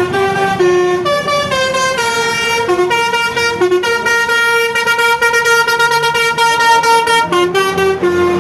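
Bus telolet horn, a Basuri multi-tone air horn, playing a tune of short stepped notes. About four seconds in it holds one long note for roughly three seconds, then goes back to quick changing notes near the end. A bus engine hums faintly underneath.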